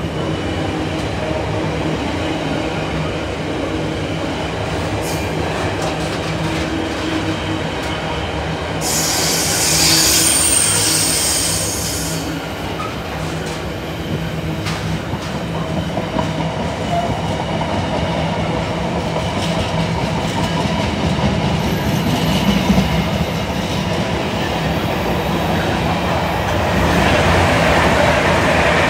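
Container freight train's wagons rolling past close by, a steady rumble with wheel-on-rail noise, and a high-pitched squeal lasting about three seconds about nine seconds in. Near the end an electric passenger train passing on a farther track makes it louder.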